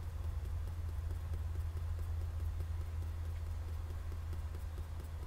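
Graphite pencil point tapping rapidly and lightly on sketchbook paper, stippling dots and short marks, heard as many faint ticks over a steady low hum.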